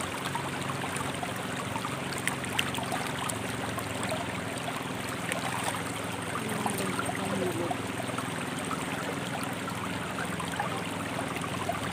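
Shallow river water flowing and trickling over rocks, a steady rush with fine splashing and bubbling throughout.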